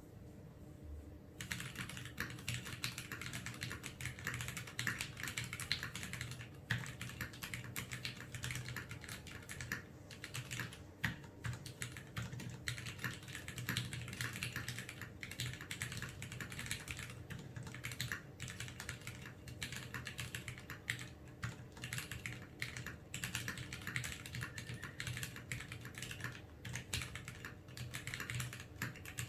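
Steady, fast typing on a TX1800 v2 mechanical keyboard with retooled Cherry MX Black linear switches, lubed with Krytox 205, under ABS keycaps: a dense run of keystroke clacks that starts about a second and a half in.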